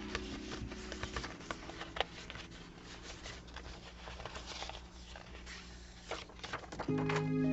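Small clicks, taps and rustles of paper being handled for collaging, under the fading low tones of background music; new background music starts near the end.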